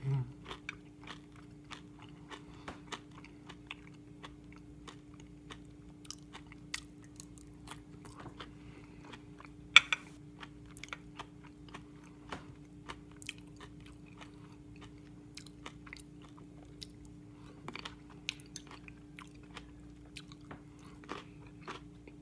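A person chewing and biting food close to the microphone, with many small scattered clicks and one sharper click about ten seconds in, over a steady low hum.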